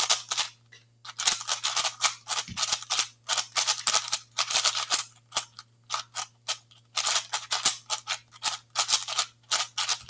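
Non-magnetic X-Man Shadow 6x6 speed cube being turned quickly by hand through an algorithm: runs of rapid plastic clacks and scrapes from the layers, broken by short pauses. The cube is new and unlubricated, still a bit dry.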